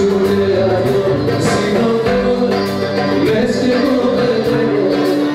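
A man singing live while strumming an acoustic guitar, amplified through a club sound system.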